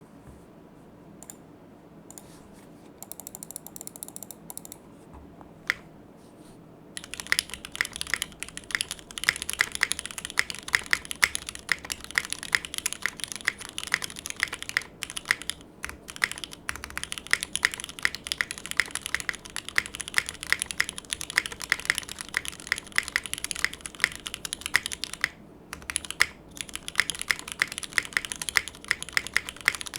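Typing on a Venn by Gok mechanical keyboard with lubed Cherry MX2A Black linear switches on a polycarbonate plate and GMK keycaps. After a few scattered key strikes, fast steady typing starts about seven seconds in, with two brief pauses.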